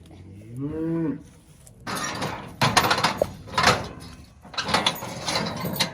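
A cow mooing: one call that rises and falls in pitch, followed by several loud, harsh bursts.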